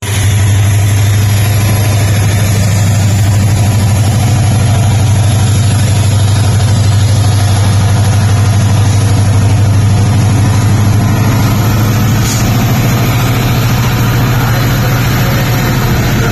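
WDP4D diesel locomotive's EMD two-stroke V16 engine running with a strong steady low hum as it pulls the train away past the platform, over a constant hiss of heavy rain. The engine hum eases slightly after about twelve seconds as the coaches roll by.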